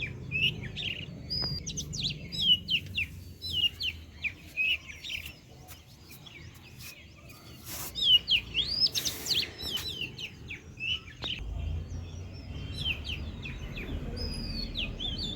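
Small birds chirping: a steady stream of quick, high chirps and short whistled sweeps that thins to a brief lull about five seconds in, then picks up again, over a low background rumble.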